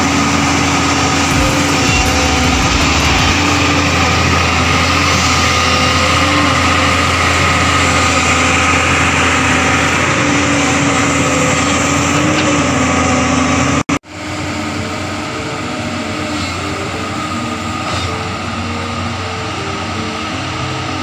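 JCB NXT crawler excavator's diesel engine running steadily under load while digging and levelling soil. It cuts out sharply about two thirds of the way through, then resumes a little quieter.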